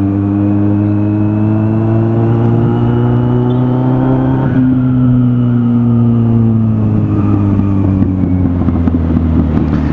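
Kawasaki Z800 inline-four motorcycle engine running under way. Its pitch climbs slightly to about halfway, then slowly falls and turns rougher near the end.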